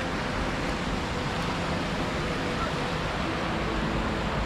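Steady, even rush of water from a river's rapids and falls over rock.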